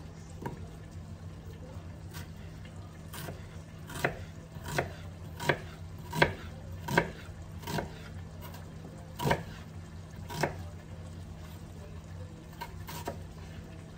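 Kitchen knife cutting an onion on a plastic cutting board: about a dozen sharp knocks at an uneven pace, closest together in the middle, about one every three-quarters of a second. Underneath runs a steady low hum and the faint sizzle of chicken thighs frying in bacon grease.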